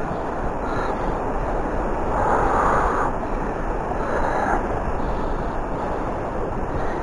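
Steady rush of a flowing river mixed with wind buffeting the microphone, swelling slightly twice.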